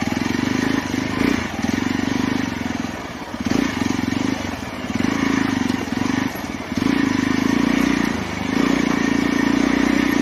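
Single-cylinder motorcycle engine running under load off-road, its note rising and dropping again and again as the throttle is opened and eased over rough ground.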